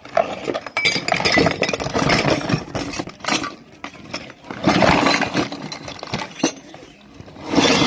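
Miniature steel and plastic toy kitchenware clattering and clinking as it is tipped out of a cardboard box, in three loud bouts.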